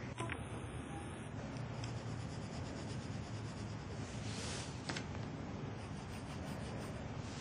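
Pencil scratching and rubbing across sketchbook paper in quick sketching strokes, with one longer, brighter stroke about four and a half seconds in.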